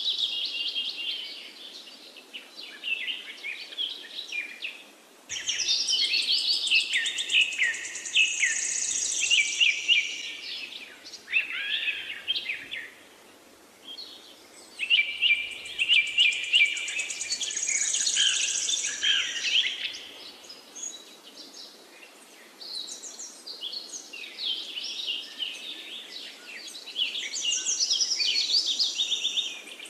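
Birds singing and chirping in busy bursts of quick high notes and trills, with a couple of brief lulls.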